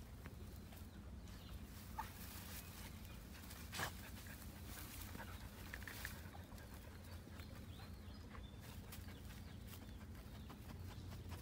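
Dogs sniffing and rustling through dry grass and sticks at the mouth of a burrow, with a few short, sharp sniffs, the loudest about four seconds in.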